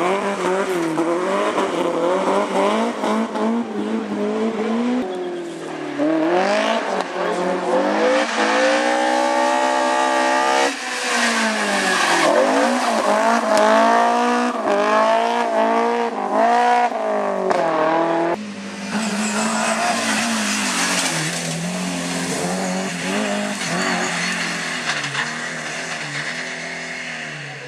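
BMW M3 rally car's engine revving hard through the gears, heard from on board, its pitch climbing and dropping sharply with each shift and lift. About 18 seconds in the engine note falls back and a loud hiss of tyre and road noise comes to the fore.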